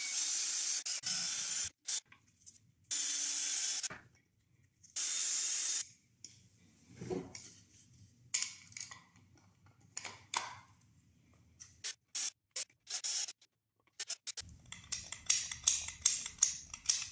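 Cordless drill driver running in three short bursts of about a second each, driving screws into a wooden stock. Scattered clicks and knocks follow, as wooden parts are handled and fitted together.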